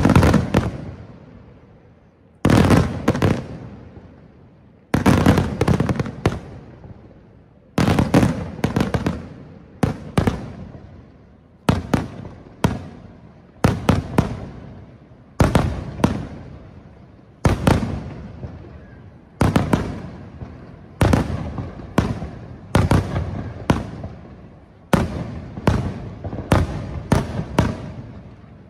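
Aerial firework shells bursting one after another, a loud bang about every two seconds, each followed by a cluster of smaller cracks and a fading echo. The bursts come faster near the end.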